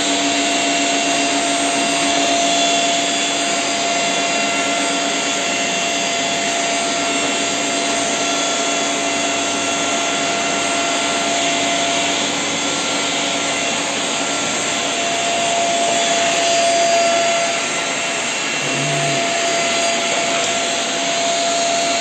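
Corded vacuum cleaner running steadily: a constant motor whine over the rush of air, with its floor head on a parquet floor.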